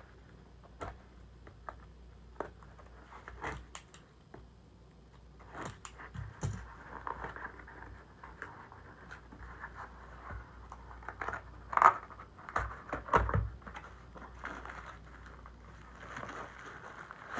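A small cardboard shipping box being handled and opened by hand: scattered clicks and taps, with scraping and crinkling of cardboard and packaging. A few sharper knocks come about two-thirds of the way through.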